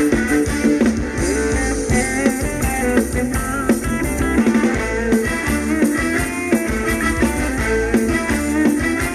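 Live band playing Thai ramwong dance music: guitar over a drum kit with a steady beat.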